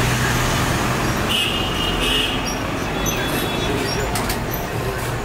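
Steady street traffic noise, with a short high ringing tone about a second and a half in and a few sharp clinks of steel utensils around four seconds.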